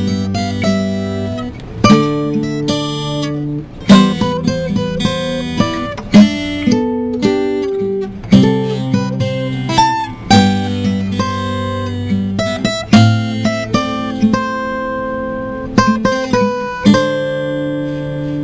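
Acoustic guitar playing chords, strummed and picked, with a hard strum every couple of seconds.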